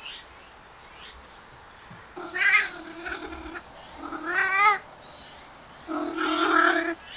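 Cat yowling three times in drawn-out, wavering calls, each about a second long: the courtship caterwauling of cats around a female.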